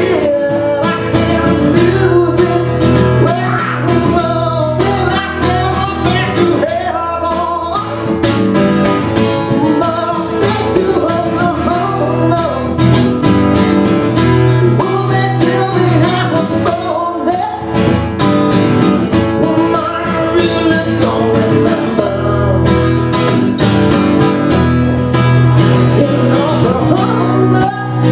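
Live solo performance: a man singing while playing an acoustic guitar, in a country style.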